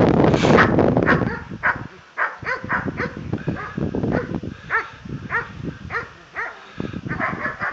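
A dog giving short, high yelping barks in a quick run, roughly two a second, after a rushing noise that dies down about a second and a half in.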